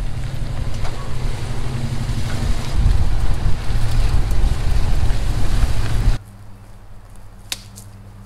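A vehicle's engine running steadily with wind noise on the microphone. About six seconds in it cuts abruptly to a much quieter steady low hum, with one short click near the end.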